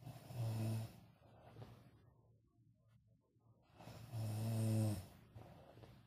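A person snoring: two loud snores about four seconds apart, each under a second long with a low buzzing pitch, and fainter breathing between them.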